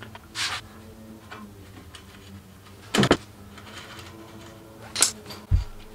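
Clicks and knocks of a bicycle's front wheel being removed: the quick-release skewer at the hub is opened and the wheel pulled out of the fork. A sharp click about three seconds in is the loudest, with another click and a low thump near the end.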